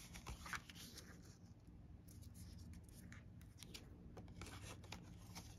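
Faint rustles and light taps of paper: a cut-out paper rose being pressed onto a cardstock card with the fingers.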